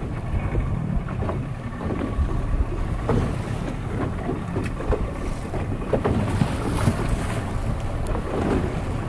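Small open wooden fishing boat under way through choppy sea: wind buffeting the microphone over the steady rush of water along the hull.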